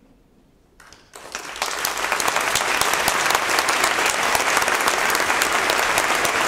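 Audience applauding: after a near-silent first second the clapping breaks out and quickly builds to full, dense applause that holds steady.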